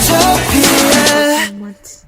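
Background pop music with a steady beat that cuts off abruptly about one and a half seconds in, leaving it quiet.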